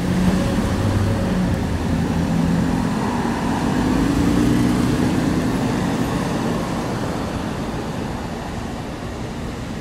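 Slow town traffic: car engines running at low speed close by, with tyre noise. One engine note rises around the middle as a car moves off.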